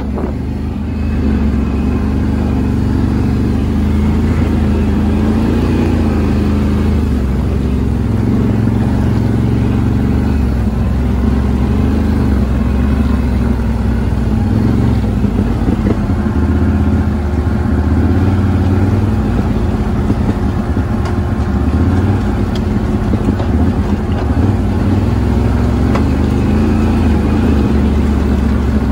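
ATV engine running, its pitch rising and falling a little with the throttle.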